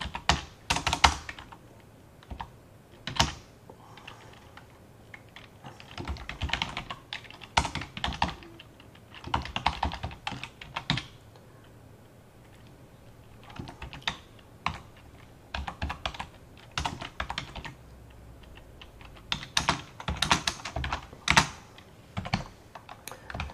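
Typing on a computer keyboard: bursts of keystroke clicks with short pauses between runs.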